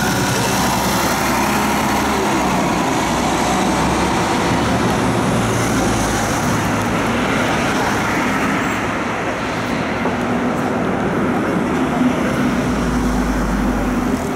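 A city tram in motion, heard from aboard: a steady running rumble and hiss from wheels and motor, mixed with street traffic. Another tram passes close alongside near the start.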